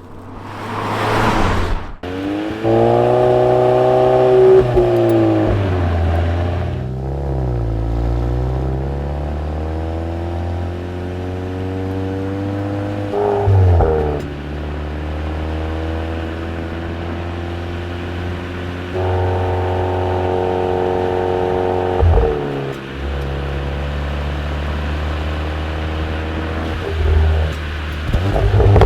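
2025 Volkswagen Golf R's turbocharged 2.0-litre four-cylinder engine and exhaust while driving, the engine note rising and dropping in steps as the car accelerates and changes gear, with steadier stretches in between.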